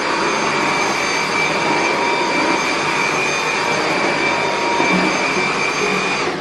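Dyson cordless stick vacuum running steadily, a loud rushing airflow with a high-pitched motor whine, as its motorized floor head is pushed over a dusty floor. The whine stops right at the end.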